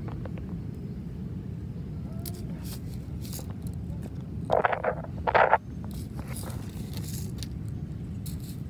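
Small plastic toy cars handled on gravel, with faint clicks and scrapes over a steady low rumble. Two short loud bursts come close together about halfway through.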